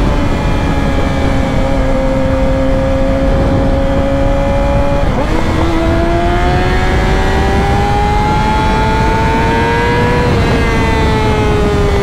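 Yamaha R6's inline-four engine under way, over heavy wind rush. The note holds nearly steady, breaks briefly about five seconds in, then climbs steadily as the bike accelerates for about five seconds and falls away near the end as the throttle eases.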